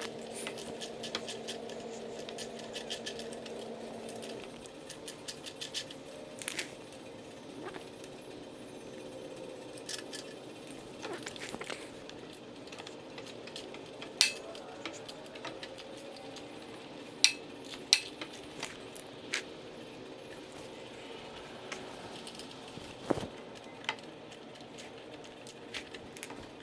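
A ratchet wrench clicking rapidly for the first few seconds while bolts holding the carburetor on a Briggs and Stratton generator are undone, then scattered sharp metallic clinks of tools and loose parts being handled.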